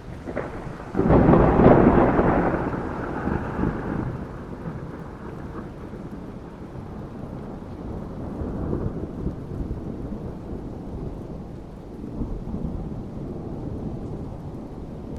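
A thunderclap breaks sharply about a second in, loudest over the next couple of seconds, then fades into rolling rumbles that swell again twice later. Steady rain sounds underneath throughout.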